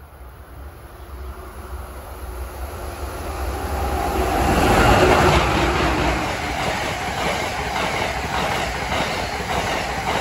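Amtrak passenger train led by an ACS-64 electric locomotive passing close by. A rumble builds to its loudest as the locomotive goes by about five seconds in, followed by the steady clickety-clack of the coaches' wheels on the rails.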